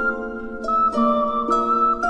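Background music: a light melody of plucked notes, a new note coming in about every half second.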